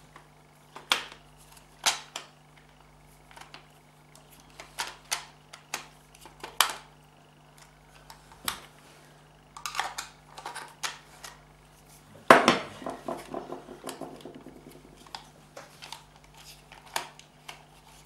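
Hard plastic and metal parts of an automatic gear selector assembly clicking and knocking as they are handled and pushed together, in scattered single clicks, with a louder clattering rattle about twelve seconds in.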